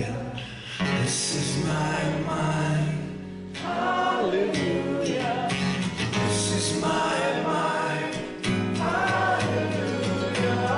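Live worship song: sung phrases over strummed acoustic guitar chords.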